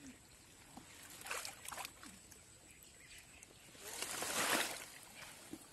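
Hands splashing and sloshing in shallow muddy water among water hyacinth while groping for catfish, in two short bursts; the second, about four seconds in, is the louder and longer.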